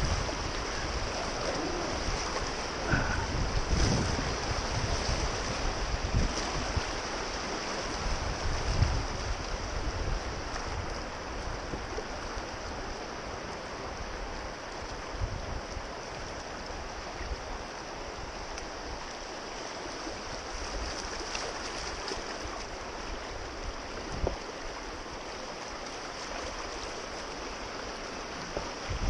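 Wind buffeting the microphone over a steady rush of moving river water, with the gusts strongest in the first ten seconds or so and then easing.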